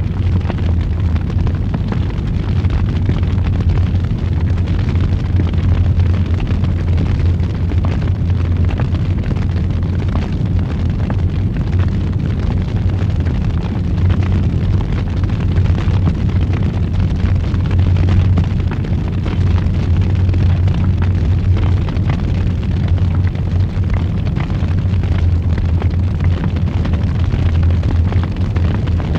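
Wood fire burning in a fireplace: a steady low roar dotted with many small crackles and pops.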